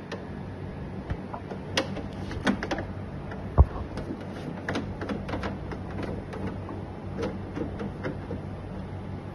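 Screwdriver and hands working screws out of a dehumidifier's plastic casing: scattered light clicks and taps, with one sharp thump a little over three and a half seconds in, over a steady low hum.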